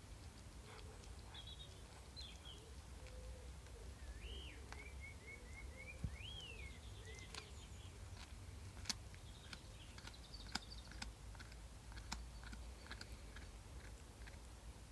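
Faint sharp clicks and crunches of a small pet eating a snack, spread out at irregular intervals. A few short chirping bird calls and a quick run of notes come about a third of the way in.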